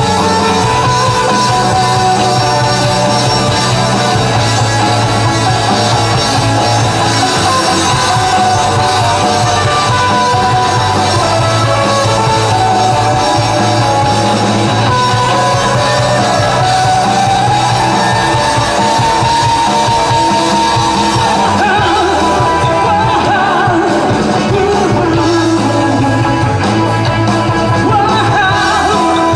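Live rock band playing a song: electric guitars, bass and drums at a steady loud level, with a singer's voice.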